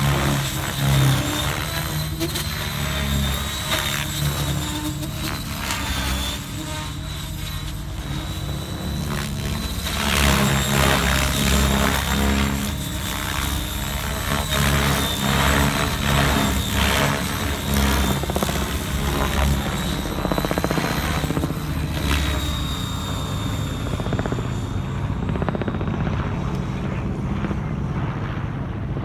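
Align T-Rex 700X electric RC helicopter flying with its rotor head at 2100 rpm: a steady high motor and gear whine over the low beat of the main rotor, swelling and easing as the blades are loaded in manoeuvres. The high whine fades in the last few seconds.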